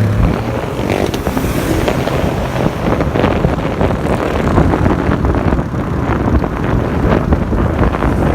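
Sport quad bike engine running loud and rough during a ride.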